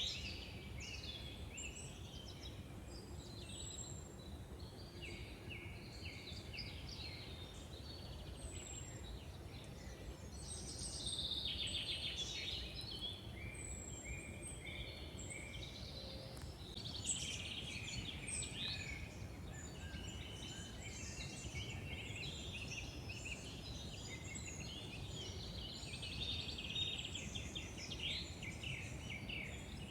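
Several woodland birds singing at once, overlapping chirps and trills with a thin high note repeated every second or two, over a steady low background rumble.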